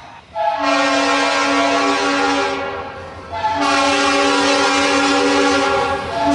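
Norfolk Southern SD40-2 diesel locomotive's multi-chime air horn sounding a loud chord in two long blasts, with a third beginning near the end, the long-long sequence of a grade-crossing warning as the freight train approaches the crossing.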